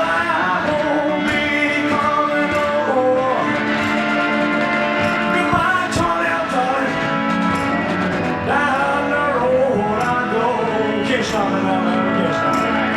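Live rock and roll song, an instrumental break with a lead guitar playing bending phrases over the band's steady accompaniment.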